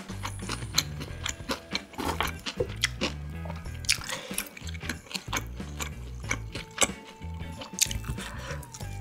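Close-miked eating sounds: wet chewing and biting of marinated grilled beef short ribs and rice, with many sharp mouth clicks.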